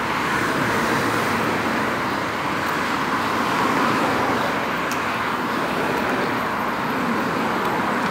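Steady road traffic noise along a city street, with cars driving past.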